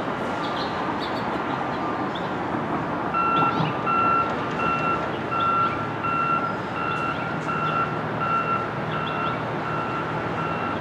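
Reversing alarm of a construction vehicle beeping at an even pace, about three beeps every two seconds, joining about three seconds in over a steady background din; a fainter, lower-pitched alarm beeps before it.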